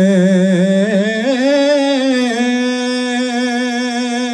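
A single unaccompanied voice singing a manqabat, a devotional poem in praise of Imam Ali, drawing out one long wavering note at the end of a line. The pitch steps up about a second in and is then held steady.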